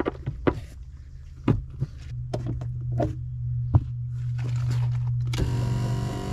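Irregular clicks and knocks of bolts and hand tools as a power seat is bolted back down to the floor of a 1999 Jeep Grand Cherokee. A steady low hum comes in about two seconds in, and a fuller, louder sound starts near the end.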